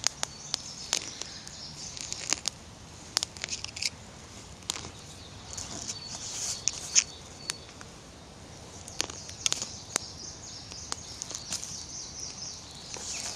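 Campfire of wet branches crackling as it burns, with irregular sharp pops and snaps. The wood is damp, which is why it crackles.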